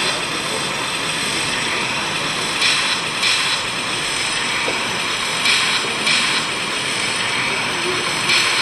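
Sound of a Viessmann model Plasser & Theurer Stopfexpress 09-3X tamping machine working along the track: short hissing bursts in pairs about half a second apart, repeating about every three seconds, over a steady background din.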